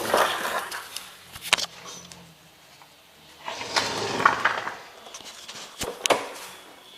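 Hands working on parts under a car: two stretches of scraping, rustling handling noise with a few sharp clicks in between, one about one and a half seconds in and two close together near the end.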